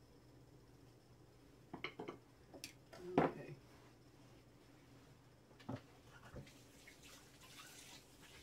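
Chicken broth with dumplings bubbling in a pot on the stove: scattered pops and small knocks, the loudest about three seconds in, over a low steady hum.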